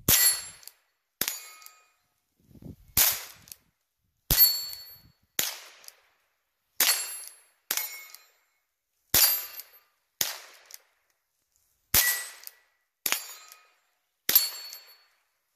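Henry lever-action .22 LR rifle firing seven single shots, a few seconds apart, each a sharp crack with a short ringing tail. After most shots a fainter sharp sound follows about a second later.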